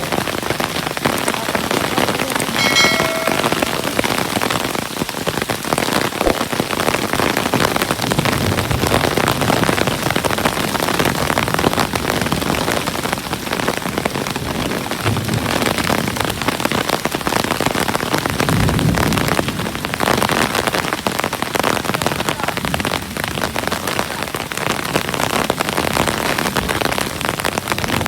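Hail coming down hard: a dense, steady clatter of hailstones striking surfaces. A short high tone sounds about three seconds in.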